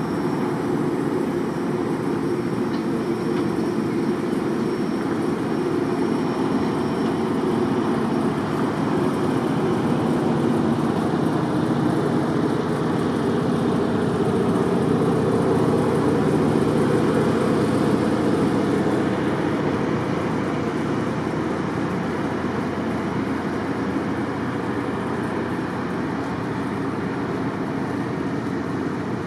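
Rail cars rolling slowly past on steel wheels, a steady loud rumble: the Kasgro caboose and the many-axled Schnabel car KRL 3600.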